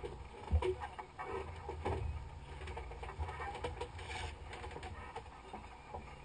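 Dry powder fire extinguisher discharging into a burning boat galley: an even hiss of powder with scattered knocks and patter, and a thump about half a second in.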